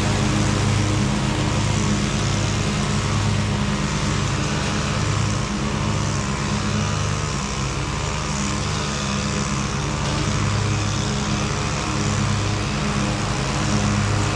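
Lawn mower engine running steadily under load, a continuous low drone that wavers slightly in strength every second or two, over a broad hiss.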